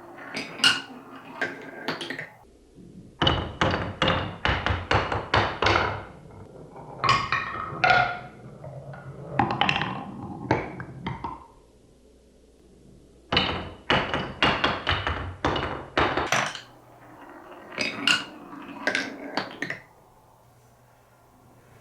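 Marbles clattering down a wooden stair-step marble run: quick runs of sharp clacks and knocks as they drop from step to step, some with a brief ringing rattle through the turn pieces. There are about five bursts, each a few seconds long, with short pauses between them.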